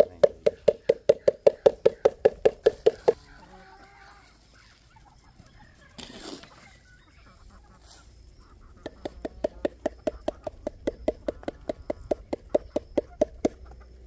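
A rapid, even string of pitched pulses, about six a second, used to call free-range chickens to corn meal scattered for them. It stops about three seconds in and starts again about nine seconds in.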